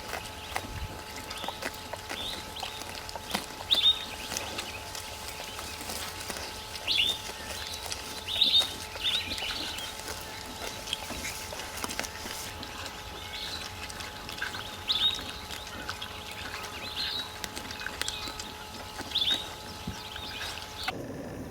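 Birds calling: short, sharp, high chirps repeated every one to three seconds, over a faint steady hum.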